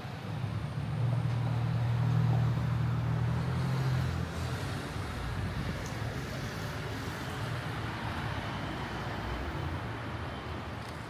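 City traffic noise, with a vehicle passing close by. Its low hum swells about a second in and eases off after about four seconds.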